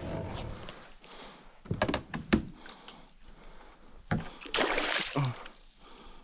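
Several sharp knocks on the kayak, then about half a second of splashing past the middle as a hooked fish thrashes at the surface while it is netted beside the kayak.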